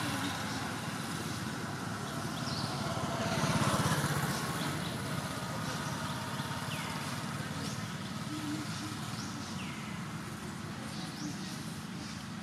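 Road traffic: the steady noise of motor vehicles, with one vehicle passing that swells and fades about three to four seconds in.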